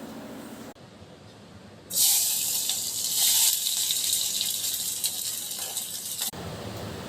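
A steady, loud rush of running water, starting abruptly about two seconds in and cutting off sharply about four seconds later.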